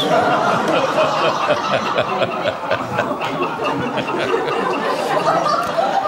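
Studio audience laughing, a dense steady wave of laughter that holds throughout.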